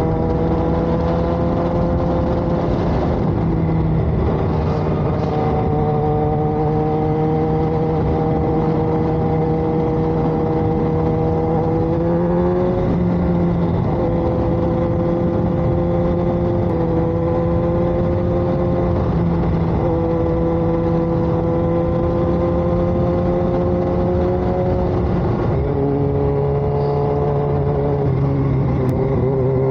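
Motorcycle engine running at a steady cruise from the rider's seat, with wind and road noise. The engine note dips and recovers a couple of times and rises as it accelerates near the end.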